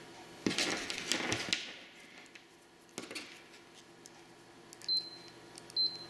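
Test leads and a BNC connector handled in the fingers, a cluster of clicks and rustling, then a single click. Near the end a multimeter continuity tester gives two short high beeps as a probe touches the connector.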